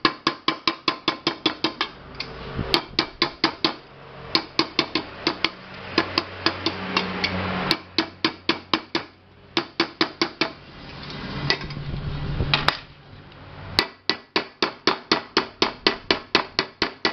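Small hammer tapping on the rim of a dented aluminium pressure cooker in runs of quick light blows, about six a second, with short pauses between runs. The blows are hammering out the dents and realigning the pan's body.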